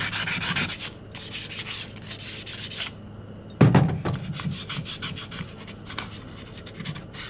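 Hand sanding on the steel of a pitted revolver, quick back-and-forth scraping strokes in two runs, taking off pitting and scarring before bluing. About three and a half seconds in there is a single thump, then the rubbing goes on more faintly.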